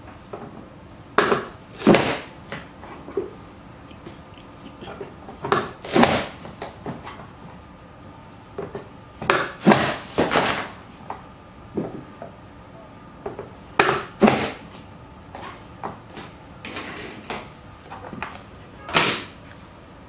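Plastic vegetable chopper's lid being pushed down onto the dicing grid, forcing potato through the blades: about ten sharp clacks, often two close together, a few seconds apart.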